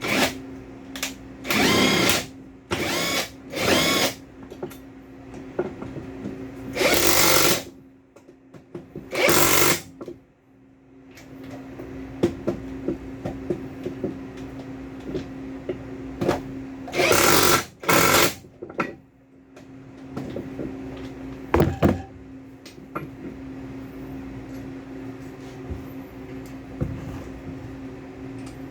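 Cordless impact wrench run in short bursts of about a second, several times, driving the screw and nut home on a container twistlock. A steady low hum runs underneath.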